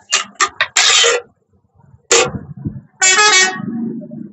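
Several short bursts of hiss, then a vehicle horn honks once for about half a second, about three seconds in.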